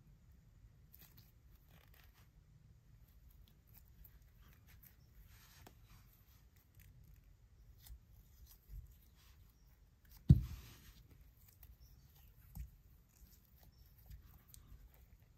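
Hands squeezing and stretching a soft rubbery stretch toy, giving faint rubbery rustling and crackling, with a sharp low thump about ten seconds in and a couple of softer thumps around it.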